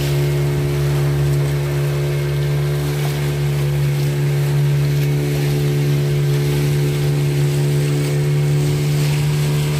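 Fishing boat's engine running under way at a steady speed: an even, unchanging drone.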